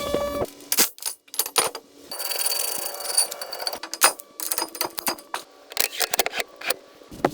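A rapid, irregular series of sharp clicks and light metallic clinks, with a short stretch of hiss about two seconds in.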